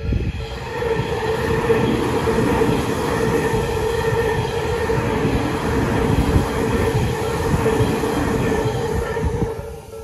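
Electric commuter train running through a level crossing, its wheels loud on the rails. The sound starts sharply and dies away about nine and a half seconds in. Under it, the crossing's electronic warning bell, the low Nikko-type tone, keeps ringing.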